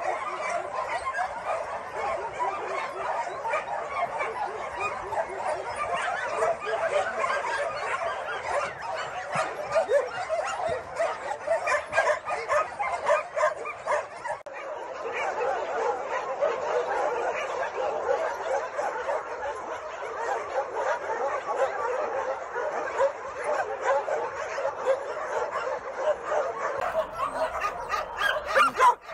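Many dogs barking and yelping at once in a dense, continuous chorus of overlapping barks.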